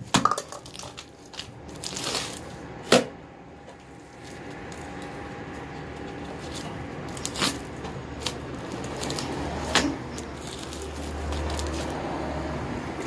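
Slime being kneaded and stretched by hand: wet squishing with sharp pops now and then, the loudest about three seconds in.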